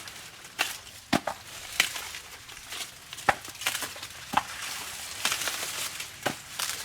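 Dry corn plants snapping and crackling as they are handled, about eight sharp snaps at uneven intervals over a steady rustle of dry leaves, typical of ears of corn being broken off the stalks by hand.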